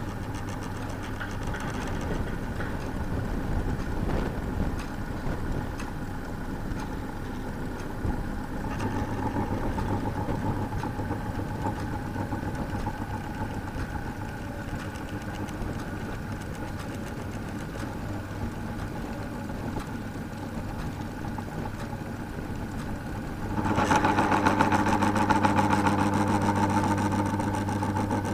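Electric fan running with a steady motor hum and a scraping rub, as if the blade or shaft is rubbing: a noisy fan. The rub is rough and uneven at first, and the sound gets louder and harsher a few seconds before the end.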